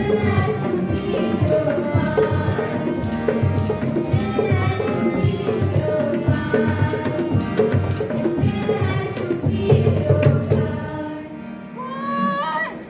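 Music with a steady jingling percussion beat under a melody, fading out about eleven seconds in.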